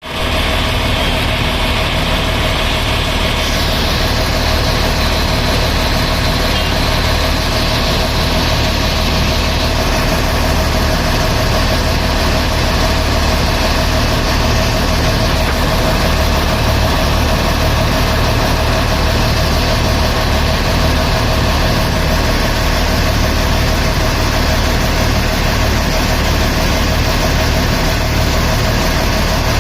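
Tata Hitachi excavator's diesel engine running steadily.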